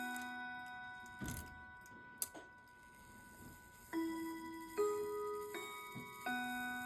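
Urgos triple-chime clock movement's hammers playing a chime tune. A note from the end of one phrase rings on and dies away, a dull thump and a sharp click fall in the pause, and then a new phrase of four struck notes begins about four seconds in, each note ringing on with overtones.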